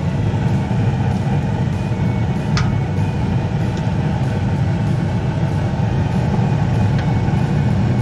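Bryant 926 series two-stage gas furnace running on high fire: a steady, loud rumble of the gas burners and blower, with a single light click about two and a half seconds in.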